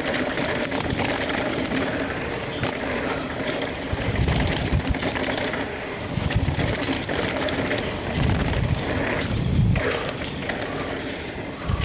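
Mountain bike descending a dirt-and-rock trail at race speed: tyres running over the ground and the bike rattling. Wind buffets the microphone in several gusts.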